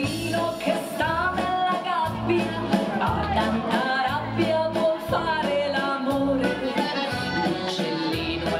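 Italian waltz music: an accordion-led melody over a backing track with a repeating bass line.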